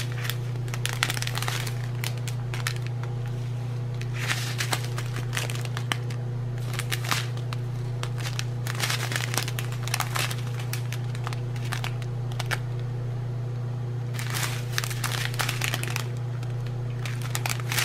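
Small plastic zip-lock bags of round diamond-painting drills crinkling in the hands in irregular bursts as the strip of bags is turned and handled. A steady low hum runs underneath.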